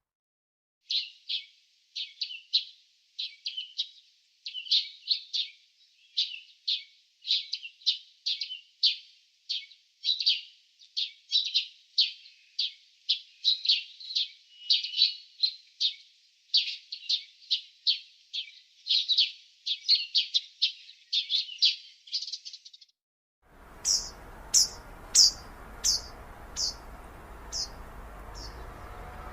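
Small birds chirping in a rapid, continuous series of short high chirps. Near the end the sound changes to a second recording with a steady background hiss, where a run of about eight higher, falling calls slows and fades out.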